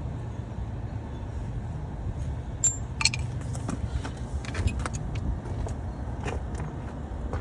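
Scattered sharp metallic clinks and taps of bolts and tools being handled, over a steady low rumble.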